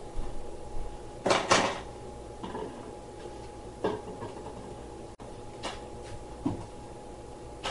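Irregular knocks and clatters of hard honey-harvest equipment being handled and set down, about seven in all, the loudest pair about a second and a half in. A faint steady hum runs underneath.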